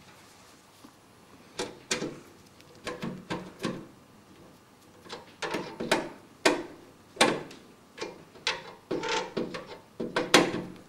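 Irregular clicks, taps and knocks of cables, connectors and parts being handled inside a metal PC case, with a sharper knock about 7 seconds in and another near the end.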